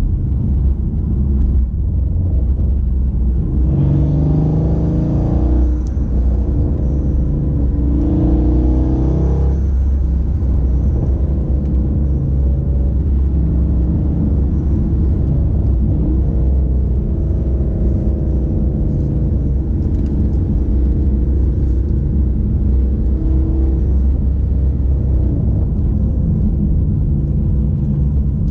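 Twin-turbo 5.8-litre V8 of a tuned Mercedes E63 AMG coupe, driving with a steady deep rumble. It rises in pitch through two short bursts of acceleration about four and eight seconds in, then climbs more gently a little past the middle.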